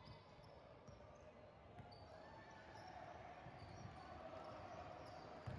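Basketball bouncing on a hardwood gym floor, faint, with a louder bounce near the end, among short high sneaker squeaks and faint distant voices in a large echoing gym.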